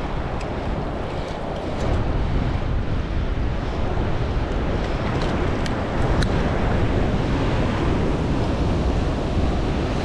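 Surf breaking and washing over the rocks, mixed with wind buffeting the microphone: a steady rushing noise that grows a little louder about two seconds in, with a few faint clicks.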